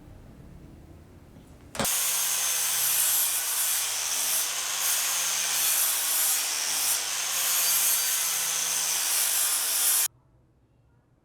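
Steady, harsh abrasive rubbing of sanding on a rusty steel knife blade. It starts abruptly about two seconds in and cuts off suddenly near the end.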